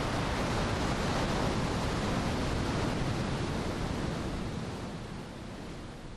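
Steady rushing noise of heavy rain pouring down, fading away over the last couple of seconds.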